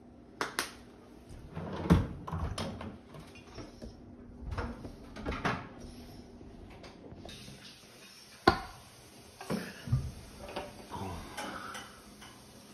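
Scattered knocks and clatters of a bowl and utensils being handled on a wooden kitchen counter, along with the phone being picked up, carried and set down. The two sharpest knocks come about two seconds in and a little past the middle.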